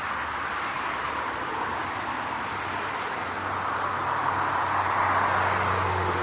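Jet airliner engines: a steady, rushing roar that swells a little louder about halfway through, with a low hum joining in.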